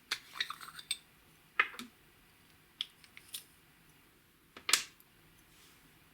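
Slime and makeup being handled for ASMR: short sharp clicks and crackly pops in four brief bursts, the loudest about a second and a half in and near three-quarters through.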